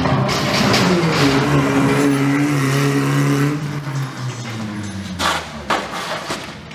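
A stunt truck's engine running, its pitch dropping within the first second and then holding steady before fading away after about three and a half seconds. A couple of sharp bangs follow about five seconds in.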